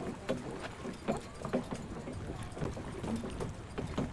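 Small waves lapping and slapping against a boat's hull, in irregular knocks and splashes, over a low rumble.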